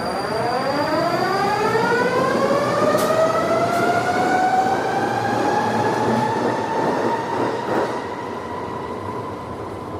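Metro train's electric traction motors whining as the train accelerates, the whine rising in pitch over the first few seconds and then levelling off, over the steady rumble of the running train.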